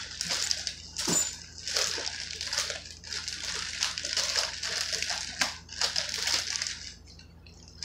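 Plastic bag of salad greens crinkling and rustling as it is pulled and shaken open, a run of crackly rustles that stops about seven seconds in.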